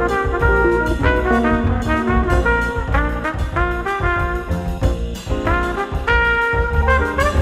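Instrumental background music with a steady beat and layered melodic notes.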